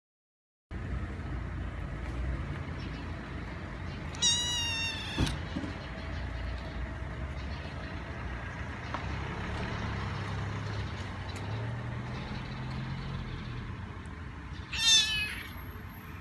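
Kitten meowing twice: a high, thin mew lasting about a second about four seconds in, and a shorter one near the end, over a steady low background hum.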